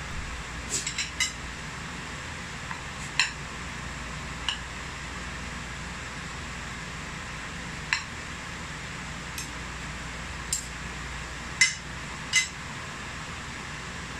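Metal spoon and fork clinking against a dinner plate of rice, about ten separate sharp clinks, the loudest two near the end, over a steady background hiss.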